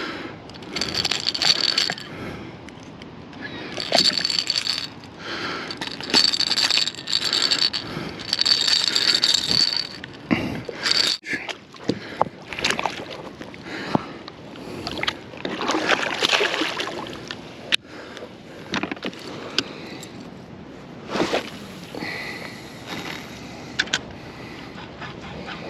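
Irregular scraping, knocking and water sloshing around a kayak, in uneven bursts with sharp knocks here and there; in the first half several bursts carry a thin high whine.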